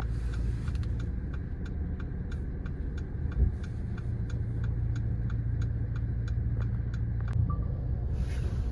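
Car engine idling, heard from inside the cabin, with a steady ticking of about three clicks a second that stops about seven seconds in. A single low thump comes about three and a half seconds in.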